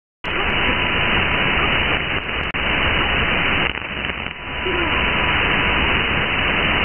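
Radio receiver hiss and static from a Perseus software-defined radio tuned to 1669 kHz in upper-sideband mode, with a faint steady whistle under the hiss. The noise cuts in abruptly just after the start and dips briefly twice.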